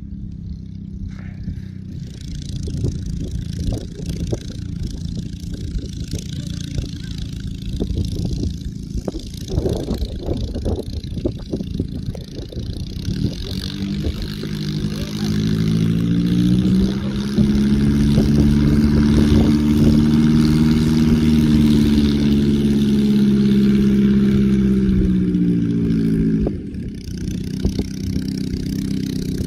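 Light aircraft's piston engine and propeller running as it taxis, growing louder and rising in pitch about halfway through, holding loud and steady, then dropping suddenly near the end as the power comes off. Wind buffets the microphone in the first half.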